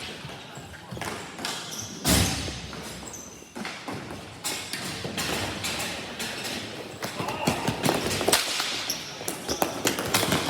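Ball hockey in play: sticks clacking and the ball striking sticks and the rink boards in quick, irregular knocks, with a heavy thump about two seconds in.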